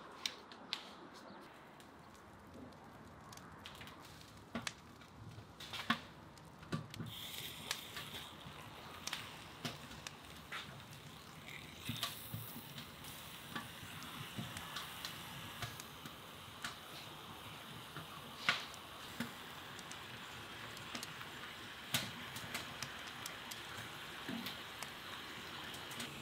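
Kindling crackling and snapping as a wood fire catches. From about a quarter of the way in, raw bone-in ribs sizzle in a hot, oiled cast-iron kazan: a steady hiss with frequent pops and spits.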